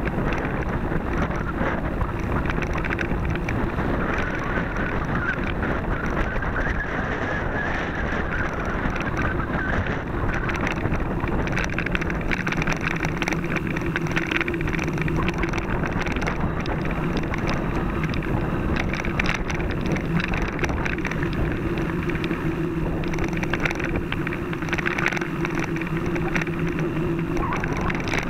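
Mountain bike ridden along a narrow dirt singletrack: continuous rattle and rumble of the bike and tyres over the rough trail, with wind on the microphone.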